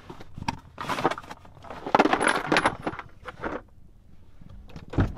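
Metal hand tools clinking and clattering in a tool case as it is handled and set down, with brief metallic rings among the clatter. A single loud thump near the end.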